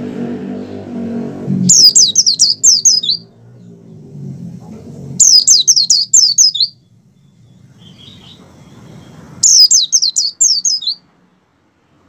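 White-eye (pleci) singing three quick bursts of high, down-slurred chirps, each about a second and a half long, the excited 'ngalas' song of a bird in heavy breeding condition. A lower, fainter hum runs under the song, loudest in the first second or so.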